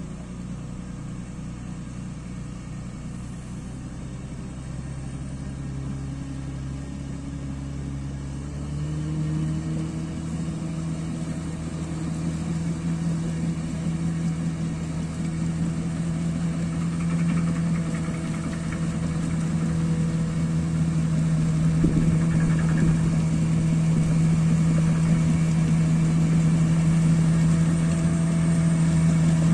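Crawler bulldozer's diesel engine running steadily while it pulls two pickup trucks through deep mud; the engine note steps up in pitch about nine seconds in and grows gradually louder.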